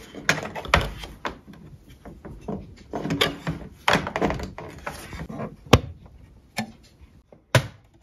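Handling noise as an AC power cord is plugged into the side of a FOSSiBOT F2400 portable power station: the cord rustling against the plastic casing, with clicks and knocks, and a few sharp single knocks in the second half.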